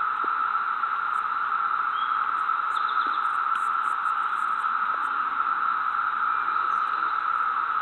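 A steady, unbroken chorus of cicadas droning in the woods, the sound the narration calls "these locusts".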